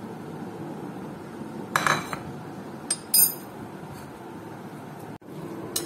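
A metal spoon clinks against a ceramic plate a few times as marinade is scraped out of it, over a steady low hum.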